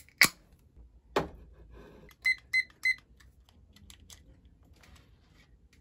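A pull-tab soda can cracking open with a sharp click, followed by another click, then a small digital timer beeping three quick times as its buttons are pressed, with faint button clicks after.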